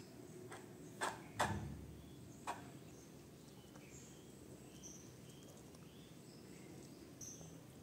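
A kitten eating from a plastic bowl on a tile floor: a few sharp clicks and knocks of chewing and the bowl in the first couple of seconds, then quiet eating. Faint short high chirps sound in the background throughout.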